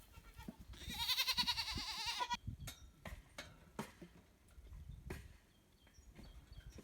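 A single long, wavering bleat from a farm animal about a second in, followed by scattered faint clicks.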